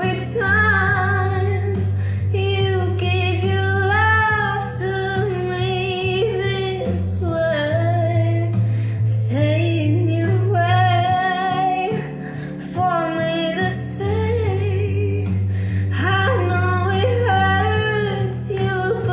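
A woman singing a pop song over a backing track with a steady, pulsing bass line.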